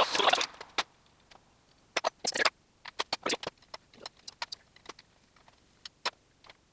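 Metal tools and car parts clattering and clinking during hand work on a car's suspension: a burst of rattling clatter at the start, then scattered sharp clicks and clinks.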